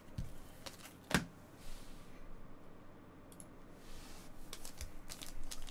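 Scattered soft clicks and taps of trading cards being handled and set down on a textured table mat. The loudest tap comes a little over a second in, and a few more light clicks follow near the end.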